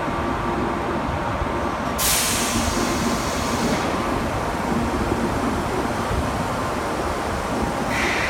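Osaka Metro 10A series subway train at a station platform: a steady low rumble, with a sharp hiss of released compressed air about two seconds in that fades within two seconds. A second, shorter air hiss comes near the end.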